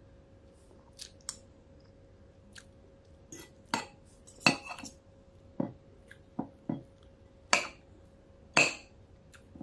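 Metal spoon and fork clinking and scraping against a plate while eating rice: a dozen or so sharp, irregular clinks, the loudest about halfway through and near the end.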